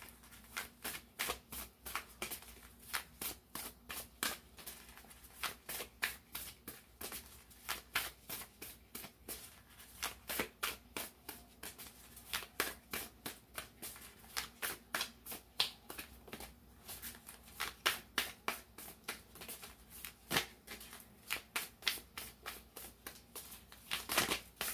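A deck of oracle cards being shuffled by hand: a continuous run of short card flicks and slaps, several a second.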